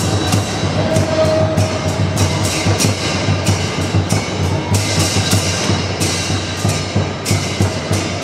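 Lion dance percussion: a large Chinese drum beating steadily with cymbals clashing about three or four times a second.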